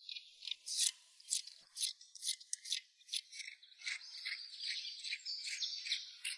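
A knife paring the sheaths off fresh bamboo shoots: repeated short scraping strokes, a few a second.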